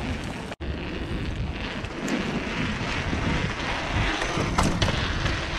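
Wind buffeting the microphone over the rumble of mountain-bike tyres rolling on paving stones, with a few short knocks and rattles from the bike. The sound drops out for an instant about half a second in.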